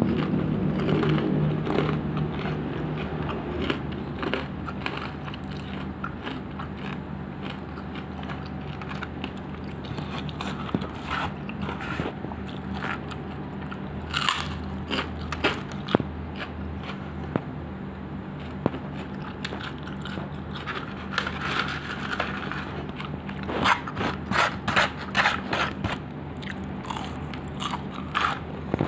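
Close-up chewing and crunching of crispy fried chicken (ayam geprek), with wet mouth clicks and bites. The crunches come in louder clusters about halfway through and near the end, over a steady low hum.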